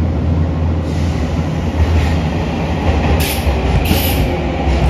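Electric commuter train sound at a station platform: a steady low rumble, with two short hissing bursts about three and four seconds in.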